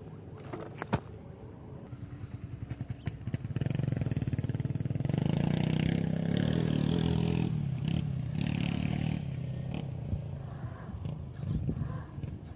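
Radio-controlled scale crawler's motor and drivetrain running as it climbs over a dirt crest and comes down toward the ground, swelling in the middle and easing off near the end, with a few sharp clicks.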